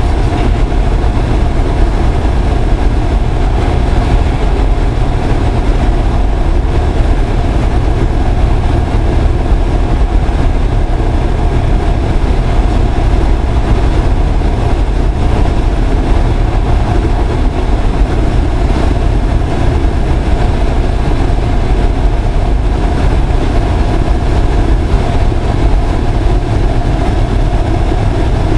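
Loud, steady cockpit noise of a Cessna 172 Skyhawk gliding on approach with its engine at idle: the idling engine and windmilling propeller drone under a rush of airflow, with no change in power.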